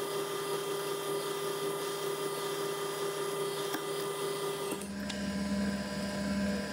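Milling machine running steadily as a small drill bores a cross hole through a metal pivot pin. About five seconds in, the steady hum changes abruptly to a lower pitch, with a larger cutter now at the hole.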